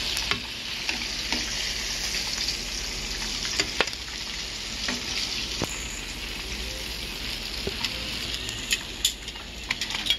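Hot oil sizzling steadily in deep-frying, with scattered sharp crackles and pops that come more often near the end.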